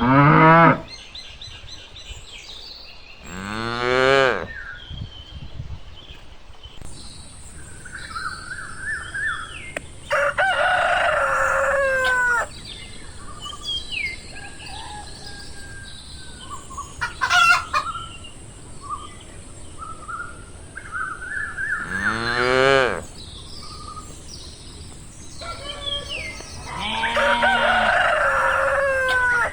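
Farmyard animal sounds: a rooster crows twice, about ten and twenty-seven seconds in. Between the crows come deep drawn-out livestock calls, at the start, about four seconds in and about twenty-two seconds in. Small birds chirp throughout.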